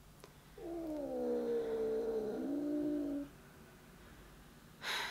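A young domestic cat gives one long, low yowl of nearly three seconds that dips slightly in pitch near its end. The cat is unsettled by a new kitten brought into the home the day before.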